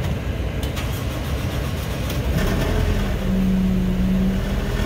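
A motor vehicle engine running, its pitch and loudness stepping up about three seconds in, with a few light clicks about half a second in.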